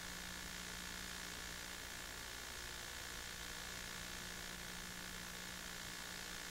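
Steady hiss with a faint low hum and no other sound: the background noise of a silent home-movie transfer.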